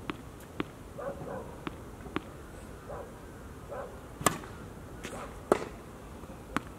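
Tennis ball bounced a few times on a hard court before a serve, then the sharp crack of the racket striking the serve about four seconds in, the loudest sound. More single hits and bounces follow as the ball is returned.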